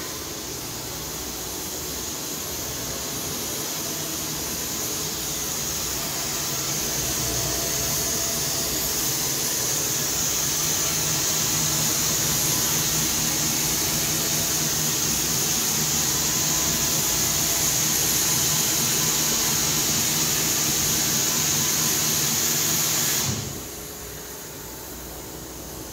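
EASTINO sinkerless double jersey interlock circular knitting machine running: a steady mechanical whirr with a strong high hiss, growing louder over the first ten seconds or so. About 23 seconds in it drops sharply to a quieter steady drone.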